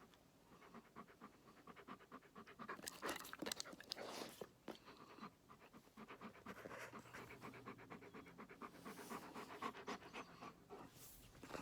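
Doberman panting in quick, even breaths, faint and close by, winded after a training session.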